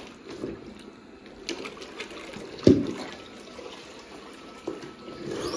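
Spin mop head swished in a plastic mop bucket full of water, with sloshing and a few knocks against the bucket, the loudest about halfway through. A rising whine starts at the very end as the mop goes into the spinner.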